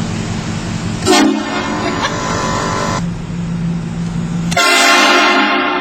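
Train horn fitted to an old truck, blown twice: a blast starting about a second in and lasting about two seconds, then a louder one near the end, over a steady low hum.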